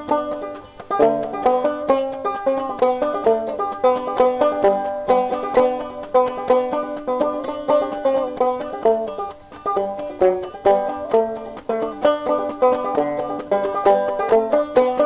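Banjo music: a quick plucked bluegrass-style tune with rapid picked notes.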